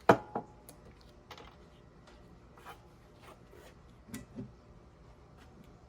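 Handling noise during a pause in spray painting: one sharp thump at the start, then scattered faint clicks and light knocks.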